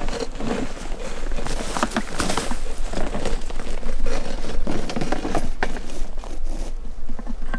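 Close rustling and crinkling with irregular clicks and knocks, like gear or clothing being handled near the microphone.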